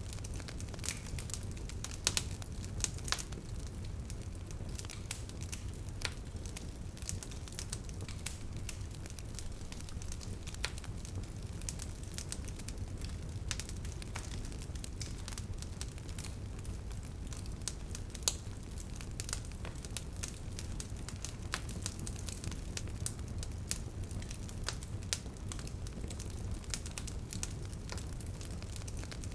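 Wood fire crackling: a steady low rumble of burning with scattered sharp pops and snaps, a few louder pops about two to three seconds in and again around two-thirds of the way through.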